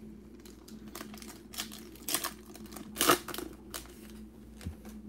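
A foil trading-card pack wrapper being torn open and crinkled by hand, an irregular run of crackles that is loudest about three seconds in.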